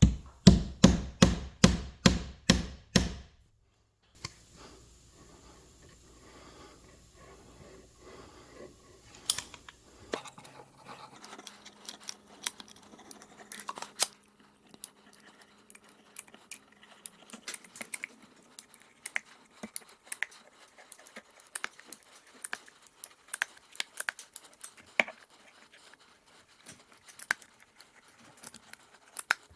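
A quick run of about eight heavy, evenly spaced knocks, about two and a half a second, like hammer blows on timber, stopping after about three seconds. After that come light clicks, scrapes and rustles from handling tools and material.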